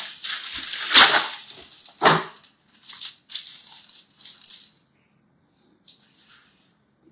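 Baking paper being pulled from its box and crinkled: a string of crackling rustles that is loudest about a second in and again at two seconds, thinning to a few faint crackles and dying away after about five seconds.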